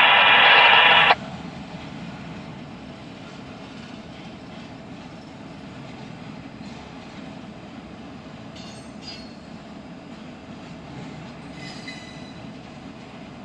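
Double-stack intermodal container train rolling past with a steady rumble and faint wheel squeal twice, once mid-way and once near the end. A loud burst of radio scanner static fills the first second and cuts off sharply.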